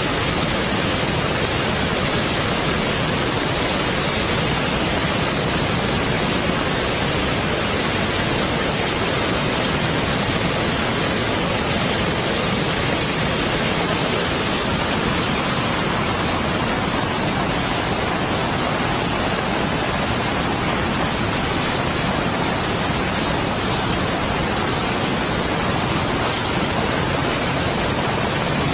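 Floodwater pouring over a fall and churning below: a steady, dense rushing noise that does not change.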